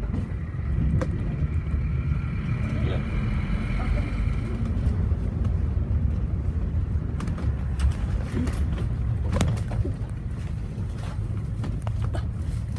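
Double-decker bus running along the road, heard from the upper deck: a steady low engine and road rumble. A faint high whine rises about two seconds in and fades a few seconds later, and sharp knocks and rattles of the bus body come later.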